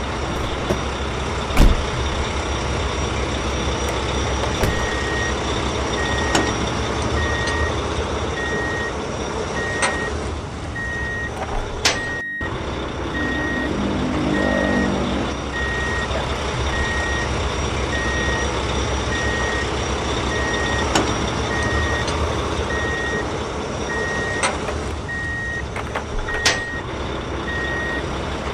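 Truck reversing alarm beeping steadily about once a second over a continuous engine rumble, with a few sharp knocks.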